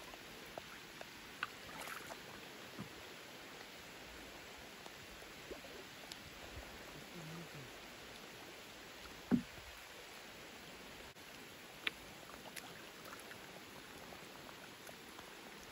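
Steady hiss of rain falling on a lake's surface, with scattered small clicks, drips and knocks as a wet gill net is pulled into a small wooden boat. A single louder dull knock comes about nine seconds in.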